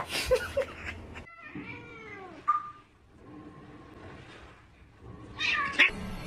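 Domestic cats meowing: a few drawn-out meows that rise and fall in pitch, with a sharp loud noise at the start and another short loud burst near the end.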